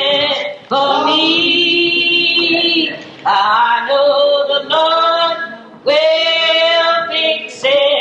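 Gospel hymn sung in long, drawn-out notes, each phrase held a second or two with short breaths between.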